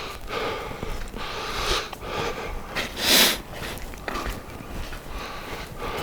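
A hiker's breathing: a series of breaths, with a louder one about three seconds in.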